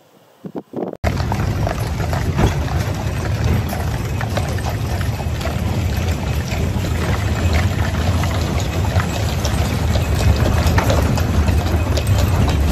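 Draft-horse-drawn wagons rolling over brick paving: a steady, loud rumble of wheels with many small clicks of hooves and wheels on the paving. It starts abruptly about a second in and grows slowly louder.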